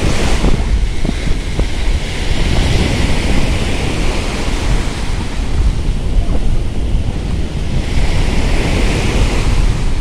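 Small waves breaking and washing up a sandy beach, the hiss of the wash swelling a few times, with heavy wind rumble on the microphone.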